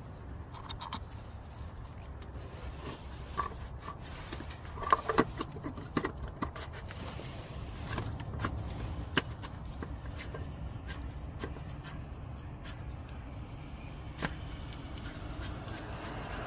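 Scattered light clicks, scrapes and small knocks of hands fitting a new cartridge oil filter and threading the oil filter housing cap back on, over a low steady hum.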